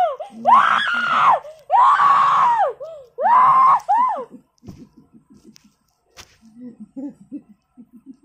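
A person shrieking three times in long, high-pitched cries, each about a second long and rising then falling in pitch; quieter short vocal sounds follow in the second half.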